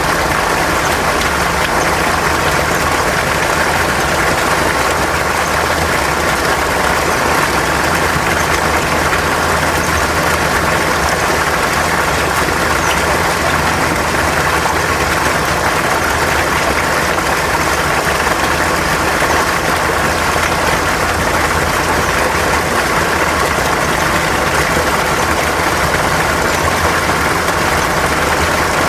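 Mountain stream water rushing steadily over rocks, an even, unbroken flow.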